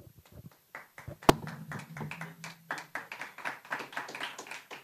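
People clapping by hand, starting a little under a second in and going on quickly and unevenly, with one sharp, louder click about a second in.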